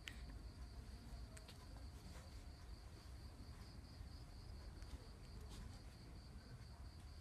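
Faint, steady high-pitched insect trill, like crickets, over low background rumble, with a few faint sharp clicks.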